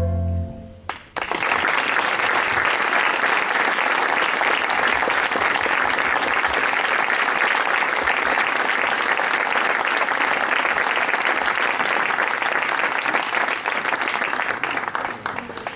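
The ensemble's closing chord dies away, and about a second in an audience breaks into steady applause that fades near the end.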